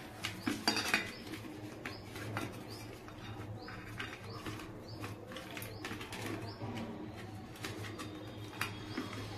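Whole bok fish being rubbed with salt and turmeric in a stainless steel plate: scattered light clicks and knocks of fish and fingers against the steel, a cluster of them about a second in, over a steady low hum.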